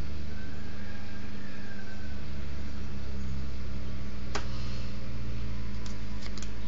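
Steady low electrical hum with a constant hiss, with one sharp click about four seconds in and a few faint ticks near the end.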